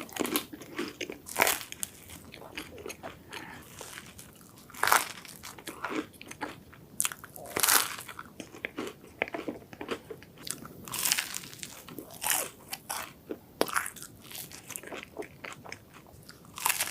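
Close-miked eating sounds of a crisp waffle with whipped cream: loud crunching bites every couple of seconds, with quieter chewing in between.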